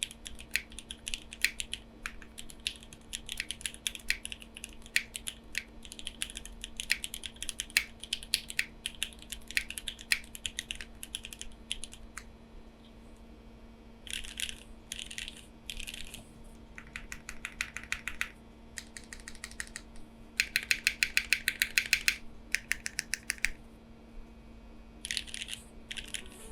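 Typing on a Neo65 mechanical keyboard with lubed and filmed Milky Yellow switches and CMK Jamon keycaps, built without foam: steady irregular keystrokes for about twelve seconds, a short pause, then several separate bursts of rapid key presses, the fastest and most even run a little past the middle.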